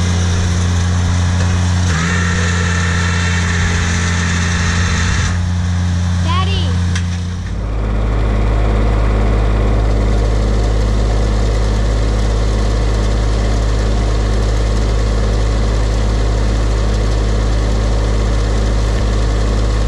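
Zero-turn riding mower's engine running steadily as it pushes a front spiked-roller attachment over loose dirt. About seven seconds in, the sound changes abruptly to a deeper, steady engine drone.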